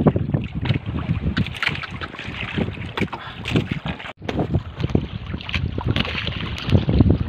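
Wind buffeting the microphone and sea water sloshing around a small wooden outrigger fishing boat, with a brief gap about four seconds in.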